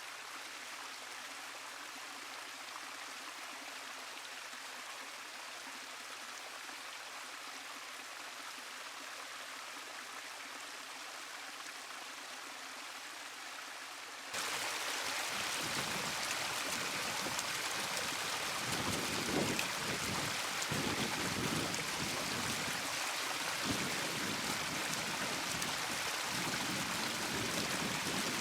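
Running water of a backyard pondless waterfall splashing over stone, as a steady rush. About halfway through it cuts suddenly to a louder, fuller rush with deeper splashing.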